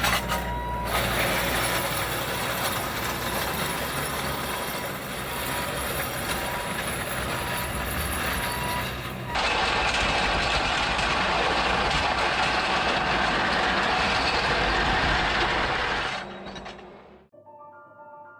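Bobcat T650 compact track loader's diesel engine working as it grades compacted gravel with an SR3 grading attachment, with a steady high tone over it for the first half. The sound changes abruptly about halfway through, then fades out near the end as marimba-like music begins.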